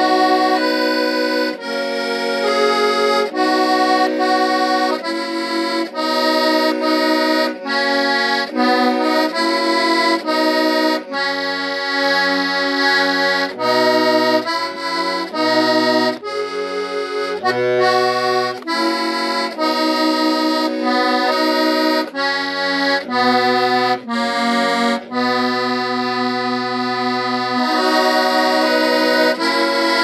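Accordion playing a tune solo, with a melody over sustained chords and bass notes that come in and out.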